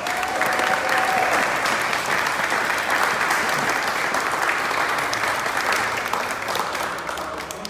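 Crowd applauding, a dense steady clapping that starts abruptly and tapers off near the end.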